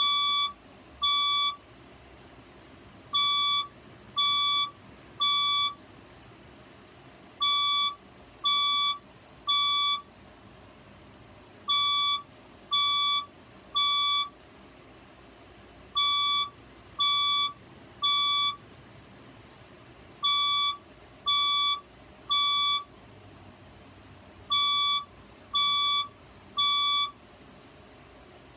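Fire alarm speaker strobe sounding the temporal-three evacuation tone. It gives three short beeps, then a pause, and the cycle repeats about every four seconds.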